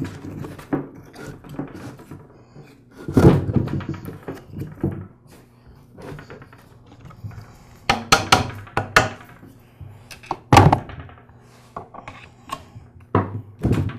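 Knocks and thunks of an air compressor's pump-and-motor assembly being slid into and handled inside its plastic housing on a workbench, in irregular bursts with the loudest knock about ten and a half seconds in.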